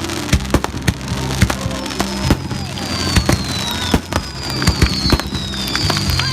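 Fireworks going off in a rapid string of sharp bangs and crackles. High whistles slide down in pitch, one from about two seconds in and another from about four seconds in.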